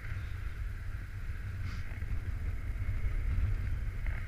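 Coastal wind buffeting the microphone in a deep, uneven rumble that swells a little past the middle.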